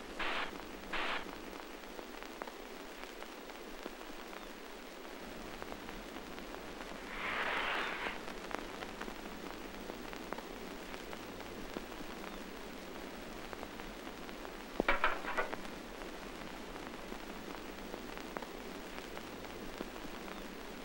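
Steady hiss of an old film soundtrack, with a few short scratchy noises near the start, a brief swell of noise about seven seconds in, and a short rattle about fifteen seconds in.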